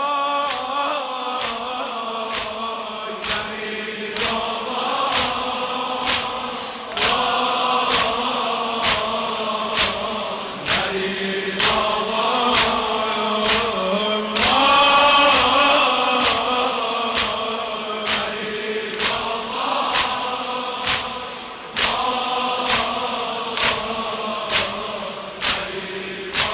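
A chorus of voices chanting a Shia Muharram lament (noha) over a steady percussive beat, a little faster than one stroke a second. The chanting swells louder about halfway through.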